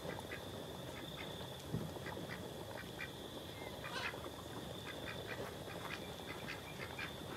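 Background animal calls: a run of short, repeated calls, several a second, over a steady high-pitched hum.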